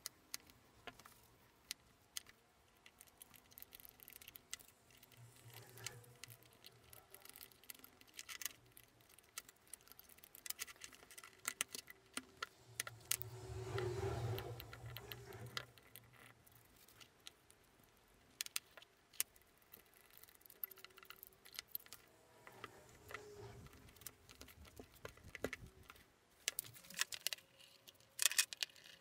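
Faint, scattered small clicks and taps of metal pins, a spatula and wooden handle scales handled on a wooden workbench during a knife-handle epoxy glue-up. Near the end a steel C-clamp is fitted and its screw turned, with a denser run of clicks.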